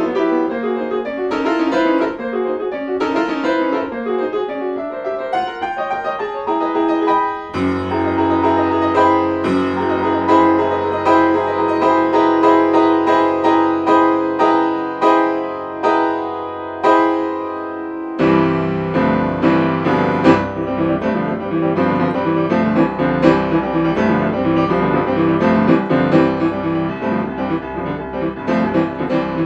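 Solo Yamaha grand piano played in a fast, busy passage. A low bass note sounds under the right hand from about a quarter of the way in until just past the middle, then the playing turns fuller and denser, with much more going on in the low register.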